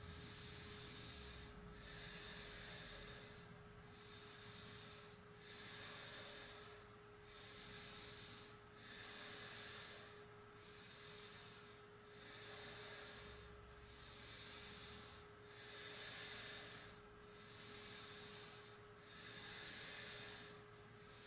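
Slow, controlled yogic breathing through the nose during a pranayama exercise: soft, airy inhales and exhales in an even rhythm, a full breath about every three and a half seconds. A faint, steady pure tone hums underneath.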